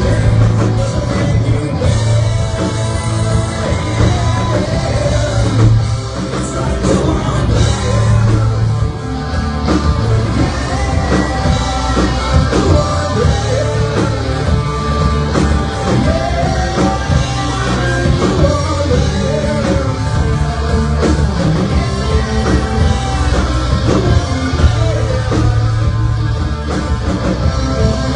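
Live rock band playing loudly, with a singer over the band.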